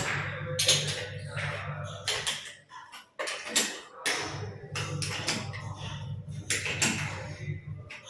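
Repeated knocks and clatter from hand tools and fittings during plumbing work, over a low steady hum that stops for about a second and a half partway through, then returns.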